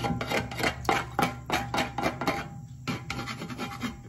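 Food residue being scraped by hand off the inside of a clay pan holding a little water: a quick run of short scrapes, about four a second, with a brief pause a little past the middle.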